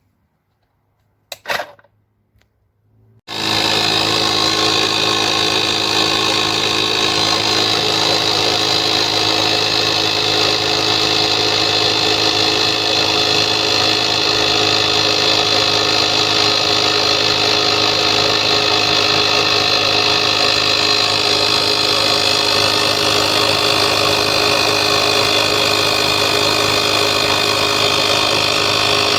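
A FORTEM 12V portable tyre inflator's compressor starts suddenly about three seconds in and then runs steadily and loudly, a constant motor-and-piston hum. Before it starts there is a single short sound.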